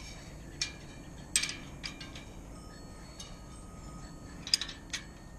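Steel wrenches clinking against a bicycle front wheel's axle nuts as an axle nut is loosened: about seven sharp metallic clinks, each with a brief ring, the loudest about four and a half seconds in.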